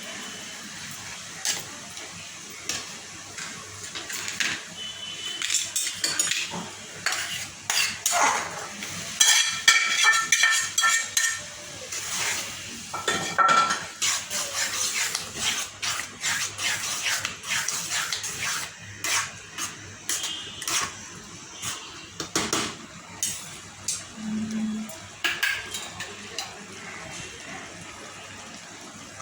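Metal utensil clinking and scraping against a cooking pan in irregular strokes, as in stirring and tossing noodles, with a cluster of ringing clinks around ten seconds in.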